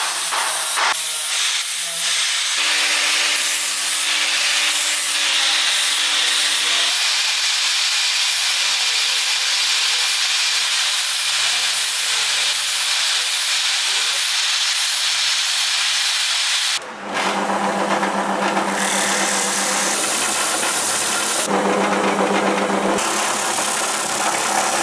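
Handheld angle grinder with a sanding disc running against a sheesham (Indian rosewood) ladle: a steady, loud hiss of abrasive on wood. About two-thirds of the way through, the sound changes to a drill press spinning a sanding drum inside the ladle's bowl, a sanding hiss over a steady low motor hum.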